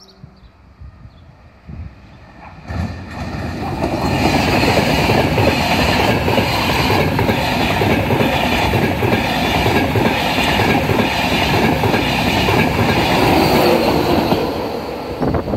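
Class 91 electric locomotive and its coaches passing close by at speed. The noise of wheels on rail comes up sharply about three seconds in, stays loud and dense for about ten seconds, and falls away near the end as the locomotive goes by.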